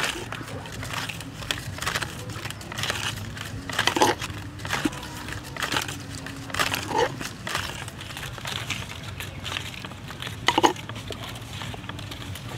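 Hands rubbing a wet chili marinade into the skin of a whole raw duck in a metal wok: irregular wet squishing and rustling with scattered small clicks, a few louder ones about four, seven and ten seconds in.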